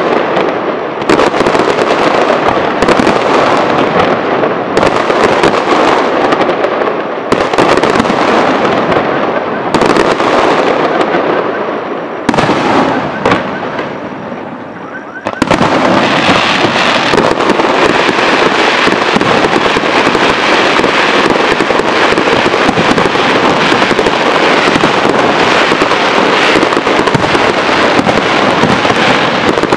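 Aerial fireworks shells bursting overhead. Loud booms come about every two seconds, each trailing off in crackle, then from about halfway a dense, continuous barrage of bangs and crackling.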